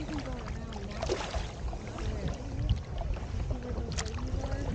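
Kayak paddles dipping into the water and dripping, with water lapping along the hull of a tandem sit-on-top kayak over a steady low rumble. Two sharper splashes come about one second and four seconds in.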